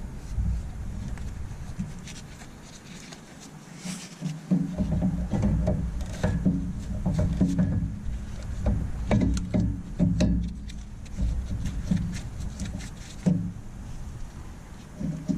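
Brake caliper being worked back into place over new brake pads: scattered metal clicks, knocks and scraping at an uneven pace over a low rumble of handling noise, with a quieter spell about three seconds in.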